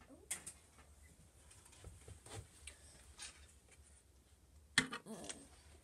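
Plastic model-kit sprues clicking and rattling lightly as they are handled, with a sharper click near the end.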